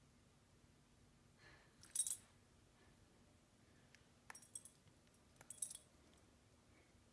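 Short metallic jingles of a dog's collar tags as the dog moves its head, three times: the loudest about two seconds in, then two more a little later.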